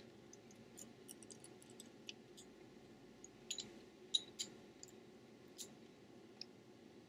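Faint, scattered small clicks and taps of a Samsung Galaxy S3's logic board and a hand tool against the phone's frame as the board is seated, the loudest few a little past the middle.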